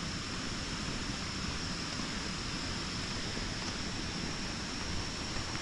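Steady outdoor background noise: an even hiss with a constant high-pitched tone running through it and an uneven low rumble underneath.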